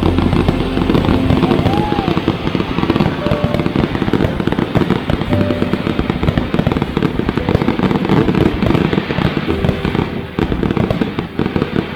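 Fireworks display: many shells bursting and crackling in rapid, dense succession, easing off a little near the end, with people's voices underneath.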